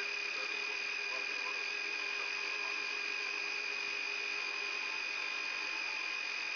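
Yak-42D cockpit voice recorder sound on the ground during engine start: a steady hiss with a constant high whine and a low electrical hum that do not change, and faint indistinct voices now and then.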